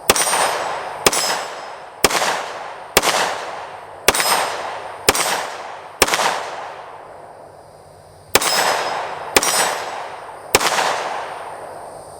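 Ten shots from a Canik TP9 Elite SC 9mm pistol, about one a second with a short pause after the seventh. Each shot is followed by the ring of a 10-inch steel gong plate being hit.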